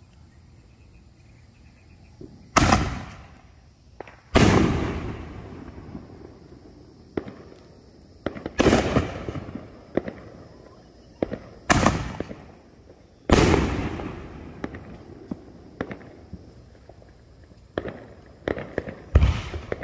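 Mad Ox Raging Bull 5-inch canister shells being fired: about six loud booms from the mortar launches and the shell bursts, each dying away in a long echoing tail. Smaller sharp pops are scattered between the booms.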